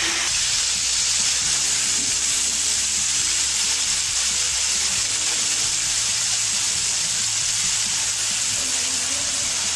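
Spice masala with tamarind paste sizzling steadily as it fries in hot oil in a non-stick frying pan.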